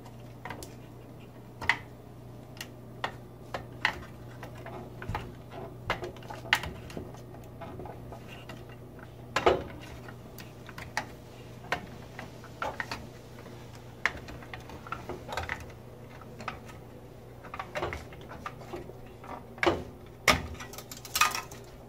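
Irregular small clicks, taps and plastic rattles of hands working a tight-fitting connector of the switch membrane (touch pad) cable loose from a gas range's control board, with a steady low hum underneath. The sharpest clicks come about nine and a half seconds in and in a cluster near the end.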